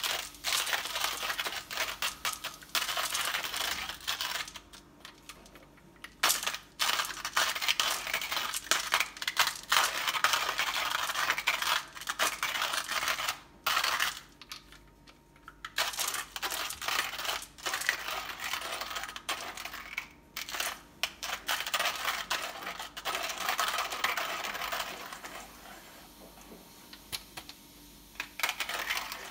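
Hario Mini Mill hand coffee grinder's ceramic burrs crunching through coffee beans as the crank is turned, a gritty crackling with two brief pauses; the beans are hard to grind. It grows fainter over the last few seconds.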